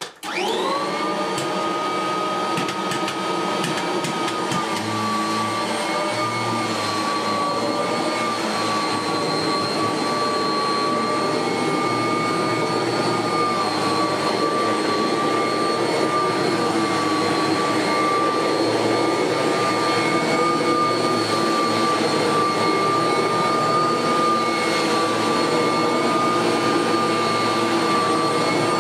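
Kirby Heritage 2 upright vacuum cleaner switched on, its motor whining up to speed within the first second. It then runs steadily with a high whine as it is pushed over shaggy carpet.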